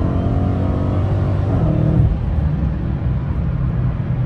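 Supercharged 6.2-litre HEMI V8 of a Dodge Hellcat running under way, heard from the car. Its pitch eases down a little over the first two seconds, then holds steady.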